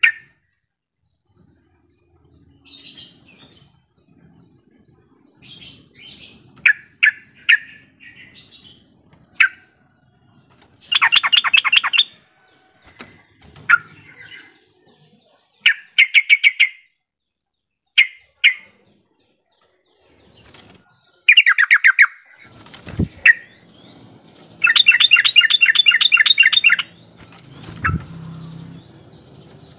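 Yellow-vented bulbul calling: scattered short, sharp chirps broken by rapid bubbling chatters. The longest chatters come about 11 seconds in and again about 25 seconds in. A sharp knock and a low thud fall in the second half.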